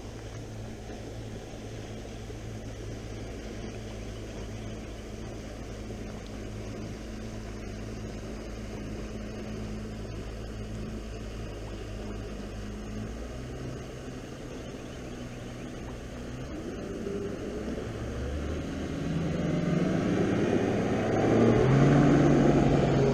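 Motorboat engine running out on the lake, a steady low drone that grows louder and climbs in pitch over the last several seconds.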